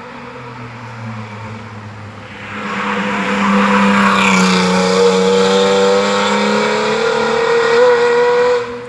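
BMW E36 3 Series coupe race car passing at speed under hard throttle. Its engine note swells over about a second and stays loud for about five seconds, the pitch dipping as it goes by and then climbing. It cuts off suddenly near the end.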